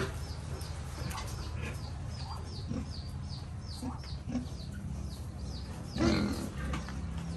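Young pigs in a pen grunting softly now and then, with a louder grunt about six seconds in. Over this, a quick series of high, falling chirps repeats several times a second for most of the first five seconds.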